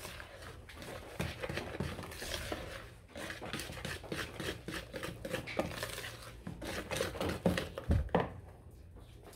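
Wire whisk beating thick cornmeal cake batter by hand in a plastic bowl: a fast run of scraping, clattering strokes, with a heavier knock near the end.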